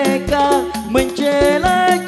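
A man singing an Islamic sholawat through a microphone, his voice gliding and held on long notes, backed by hadrah percussion: deep drum strokes about twice a second and a rattling jingle.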